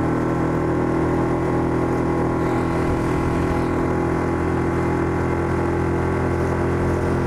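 Mercury 6 hp single-cylinder four-stroke outboard, a Tohatsu-built motor, running steadily under load with water rushing along the hull as the jon boat gathers speed toward plane. This is the slow climb onto plane in which the owner feels the motor bogging down.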